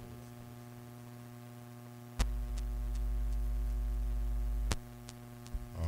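Electrical mains hum through a sound system, with a few faint ticks. About two seconds in, a click brings in a louder, deeper hum, which cuts off with another click about two and a half seconds later.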